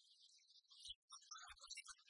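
Near silence: a faint, crackly high hiss with a few soft low thumps in the second half.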